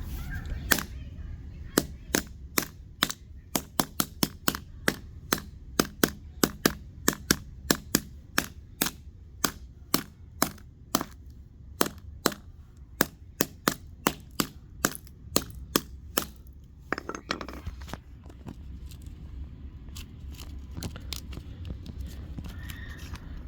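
A long run of sharp clicks or taps, two to three a second, from a tool working on an old Kindle tablet's plastic casing. They stop about two-thirds of the way through, followed by a short scrape.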